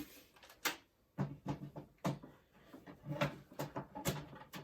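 A series of about ten knocks and clunks from a PC case being handled and moved about.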